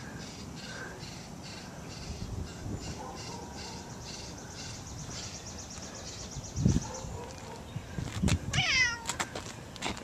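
A domestic cat meows once near the end, a single call that falls in pitch as it ends. Before it there is a dull thump, and a faint, even high-pitched chirping runs in the background, about three chirps a second.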